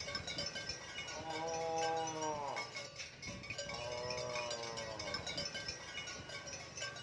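Cattle mooing twice, two drawn-out calls each bending down in pitch at the end, over background music with chime-like tones.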